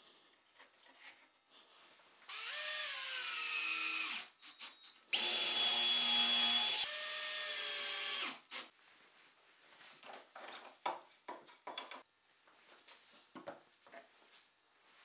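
Cordless drill-driver driving screws into plywood in two runs of about two and three seconds, its motor whine sagging in pitch as each screw bites and draws tight. Light knocks of handling the wood follow.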